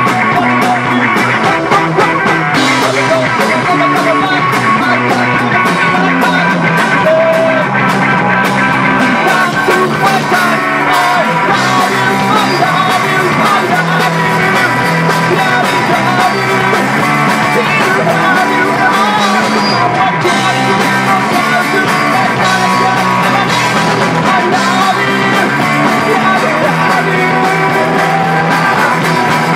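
Live rock band playing loud: electric guitars, bass guitar and drum kit, with the guitarist singing lead.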